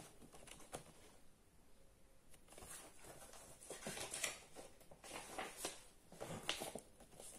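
Faint, scattered rustling of a picture book's paper pages being handled and turned, in several short soft bursts.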